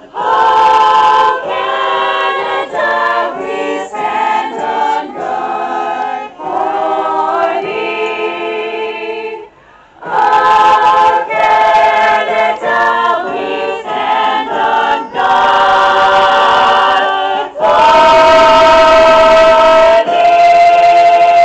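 A high school band performing live music: a run of held chords and short melodic notes, breaking off briefly about nine and a half seconds in, then building to loud sustained chords near the end.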